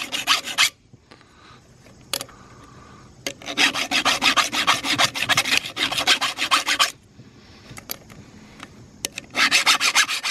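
Flat file rasping over a chainsaw chain's depth gauges through a steel depth-gauge tool, filing down the gauges so they no longer stand too high above the sharpened cutters. It goes in runs of quick back-and-forth strokes: a short run at the start, a longer one of about three seconds in the middle, and another starting near the end, with a few sharp clicks in the quieter gaps between.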